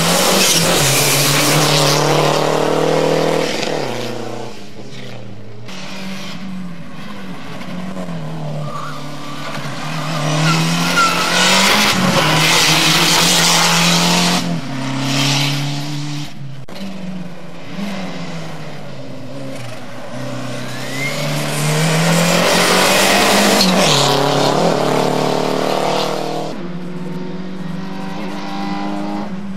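Small hatchback race cars' engines revving hard through a cone slalom, the pitch climbing and dropping again and again as the drivers lift off and reapply throttle, in three loud surges. A few brief tyre squeals come in between.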